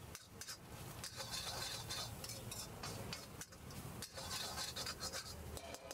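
Long steel spoon stirring and scraping egg bhurji around a black wok: repeated metal scrapes and clinks against the pan.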